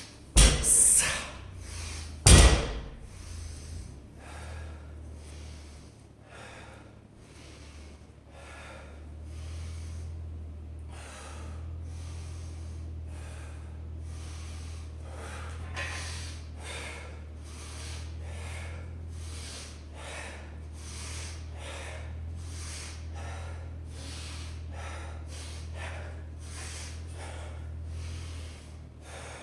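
A person breathing hard after exertion, a long run of quick, even breaths a little more than one a second, over a steady low hum. A few loud thuds come in the first few seconds.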